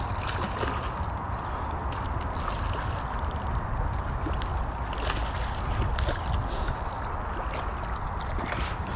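Water splashing and sloshing as a hooked fish thrashes at the surface on a taut line, with a steady low wind rumble on the microphone and short sharp ticks throughout.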